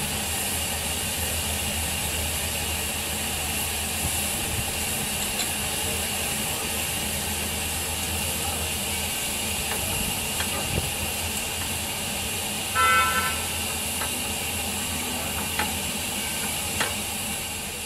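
Narrow-gauge saddle-tank steam locomotive standing in steam, hissing steadily. A short high-pitched toot comes about thirteen seconds in, with a few light clicks after it.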